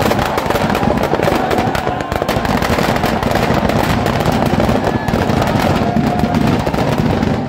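Firecrackers packed inside a burning Dussehra effigy going off in a rapid, unbroken crackle of bangs, loud throughout.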